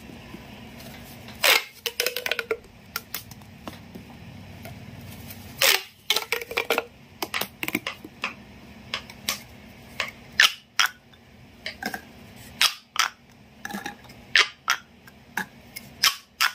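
Plastic pop tubes being stretched and squashed by hand, their ribbed folds snapping open and shut in an irregular run of sharp pops and clicks. Several louder snaps stand out among quicker clusters of smaller clicks.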